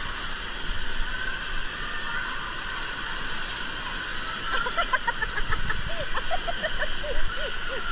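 Indoor water park din: a steady rush of splashing water, with short high-pitched calls from children starting about halfway through.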